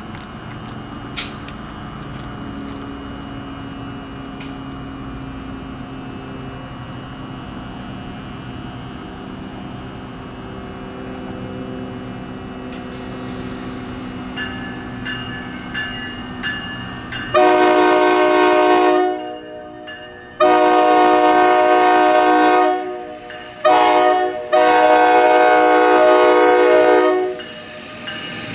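NJ Transit ALP-46 electric locomotive approaching with a low rumble that slowly grows. It then sounds its horn in two long blasts, a short one and a long one, the standard grade-crossing signal.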